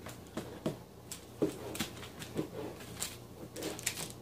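Hands patting and pressing pie-crust dough flat on wax paper, giving soft irregular pats and brief paper rustles, about one every half second.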